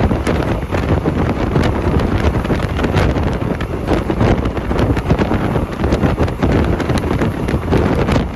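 Wind buffeting the microphone: a loud, continuous low rumble with gusty crackles throughout.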